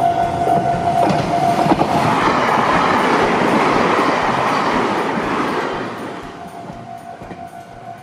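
Meitetsu electric commuter train passing close by, its wheels clattering over the rails; the noise swells about two seconds in and fades away from about six seconds. A level-crossing warning bell rings with a steady tone at the start, dying away as the train arrives.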